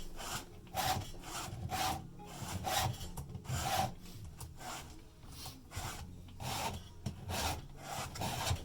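Saw chain being hand-filed with a two-in-1 file guide, a round file sharpening the cutting teeth and a flat file lowering the depth gauges. Steady rasping file strokes, a little under two a second.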